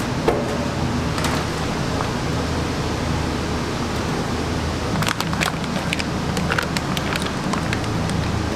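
Plastic vacuum-pack wrapping crinkling and rustling as raw beef short ribs are pulled out and handled with gloved hands, the crinkles coming now and then and most thickly from about five seconds in. Under it a steady low hum runs throughout.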